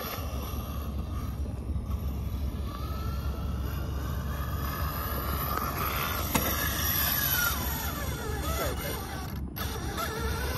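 Electric drive motor and gears of a 2S LiPo-powered radio-controlled truck whining, the pitch rising and falling as the throttle changes while it crosses grass and climbs a concrete slope. A steady low rumble runs underneath.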